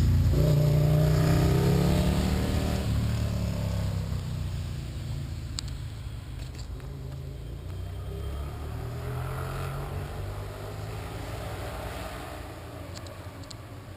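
A motor vehicle on the highway driving past, its engine loudest and rising and falling in pitch over the first few seconds, then fading steadily away as it drives off.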